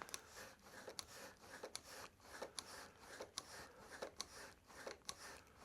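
Faint, irregular small clicks and light rubbing of hands and metal parts working a motorcycle throttle cable and its fittings into place.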